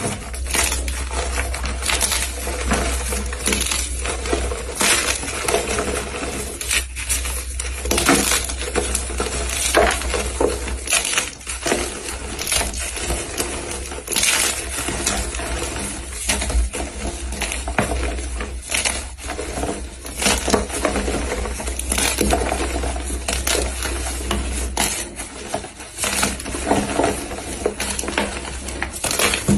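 Blocks of gym chalk being crushed, a dense, irregular run of crunchy crackles and snaps.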